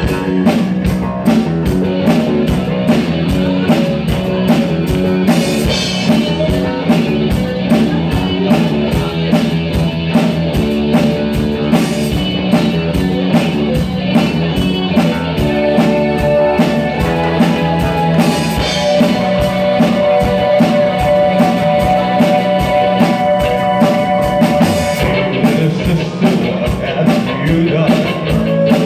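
A live new wave rock band playing a cover: a drum kit keeping a steady beat under bass, electric guitar and keyboards, with a lead vocal.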